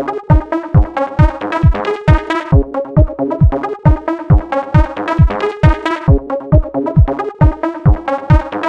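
Electronic background music with a steady, fast kick-drum beat under repeating synthesizer chords.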